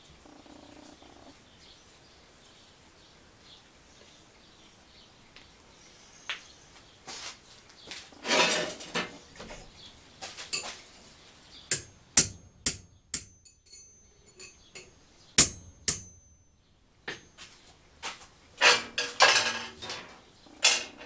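Steel striking steel: a short scrape about eight seconds in, then four sharp ringing clanks in quick succession, two more a few seconds later, and a dense clatter of small steel parts on a steel-plate worktable near the end.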